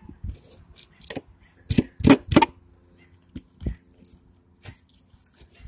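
Knife cutting along the spine of a Mayan cichlid on a board, making a series of sharp clicks and cracks, with three loud ones close together about two seconds in.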